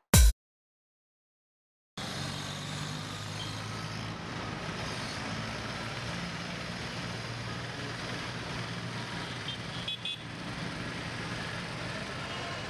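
Busy street traffic at a crowded intersection: a steady din of motorbike, scooter, auto-rickshaw and car engines, fading in about two seconds in after a short silence, with a few brief high beeps, likely horns, around ten seconds in.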